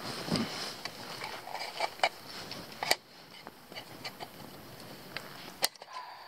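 Rustling of dry twigs and forest-floor debris being handled, with scattered sharp snaps and clicks at irregular intervals.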